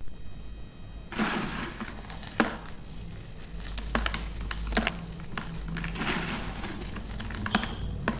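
Broken pieces of dried baking soda being crushed and crumbled by hand: a run of crunching and crumbling that starts about a second in, with many sharp cracks as chunks snap.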